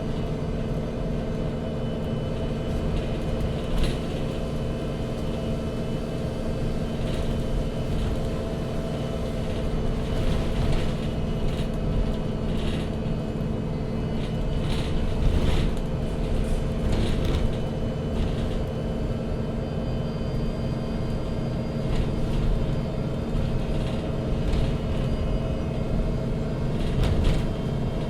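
MAN NG 313 CNG articulated city bus under way, heard from inside: the natural-gas engine and drivetrain run with a steady hum over a low road rumble, with several short rattles from the body.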